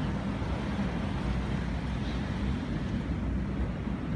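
Steady rush of a wide river flowing past the bank, mixed with wind buffeting the phone's microphone.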